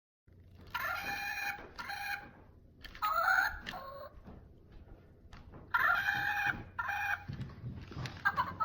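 A run of about five pitched, fowl-like calls, each under a second to about a second long, with pauses between them.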